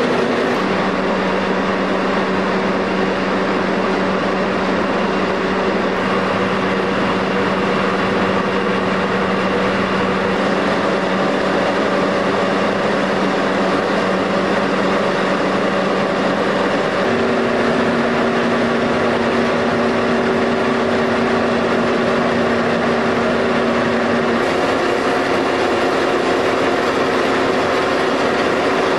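Hobema paper kitchen towel printing and folding machine running: a steady, loud mechanical noise with a hum whose pitch steps up about halfway through.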